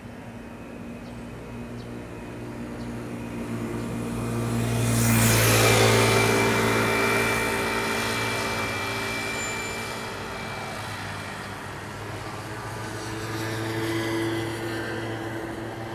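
A vehicle passing by, loudest about five seconds in, its pitch falling as it goes away. Near the end comes the swelling running sound of an electric train approaching, an Odakyu 3000 series.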